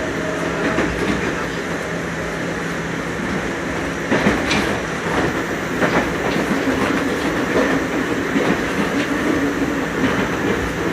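Nagoya Municipal Subway 3000-series chopper-controlled electric train running, heard from inside the car. A steady hum is heard for the first few seconds, then from about four seconds in the wheels clack repeatedly over rail joints.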